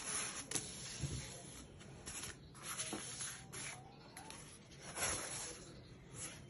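Rustling and scraping of a folded XPE foam seat mat being slid out of its nylon mesh drawstring bag and unfolded, with a few sharp ticks as it is handled.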